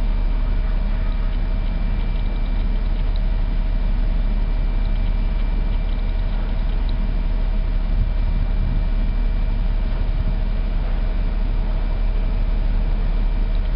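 Steady low rumble of a ship's machinery heard on the bridge, with a constant high-pitched hum running through it.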